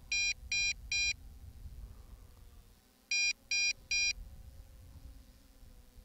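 MJX Bugs 5W quadcopter's handheld transmitter beeping in sets of three short, high beeps, two sets about three seconds apart: its low-battery warning. A low rush of wind lies underneath.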